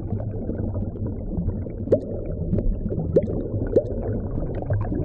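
Sound-designed dark liquid: a low, steady rumble with bubbling and gurgling. Three short rising bloops come about two, three and nearly four seconds in, among small scattered ticks.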